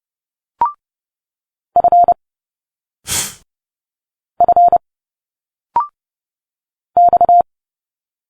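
Morse code sent at 30 words per minute as a steady beep tone, three quick groups of short dits. Between them comes a short hiss of a spoken consonant sound, and twice a very brief rising blip.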